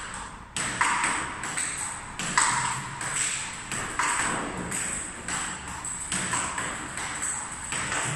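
Table tennis rally: the ball clicks off the rubber-faced paddles and bounces on the table in a steady back-and-forth rhythm, about two to three hits a second.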